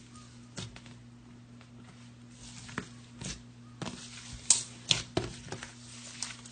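Slime being squeezed and poked by hand, giving irregular sticky clicks and crackly pops that come more often and louder in the second half, over a steady low hum.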